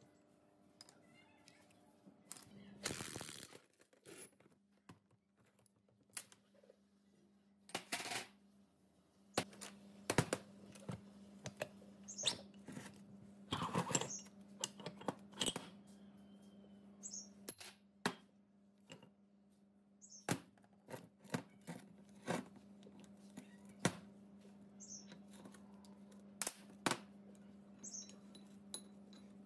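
Steel parts of a pneumatic impact wrench being worked apart and handled on a steel diamond-plate bench: scattered clicks, knocks and metallic clinks, with two longer scraping rattles, one about three seconds in and one around the middle. A low steady hum runs underneath.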